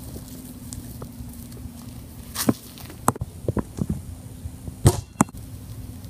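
A basketball knocking and bouncing on hard surfaces: several sharp thuds in the second half, the loudest about five seconds in, over a faint steady low hum.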